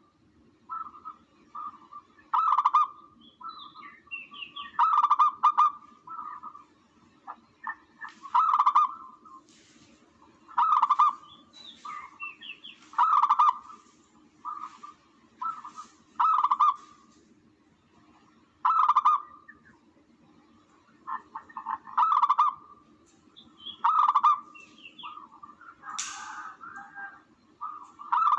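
Recorded bird calls played back as a hunting lure: short, harsh calls repeating about every one to two seconds, with some higher chirps between them. A brief noisy burst comes near the end.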